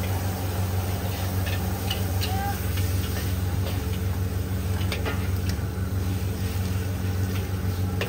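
Char koay teow being stir-fried in a large steel wok: scattered scrapes and taps of the metal spatula against the wok over a steady low hum.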